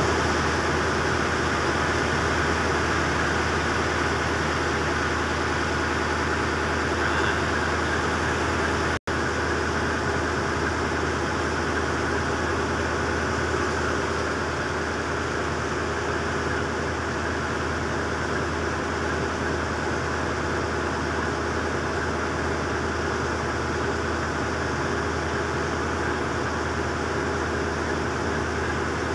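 The pilot boat's engine running steadily with a low drone and a hiss over it, heard from on board. The sound cuts out for an instant about nine seconds in.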